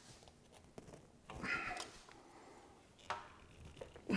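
Quiet handling noises at a motorcycle engine case: a few light clicks and knocks and a brief rustle a little over a second in.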